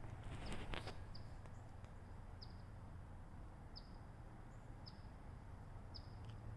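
Faint short high chirps, one about every second, typical of a small bird, over a low steady hum. A couple of light clicks come about half a second in.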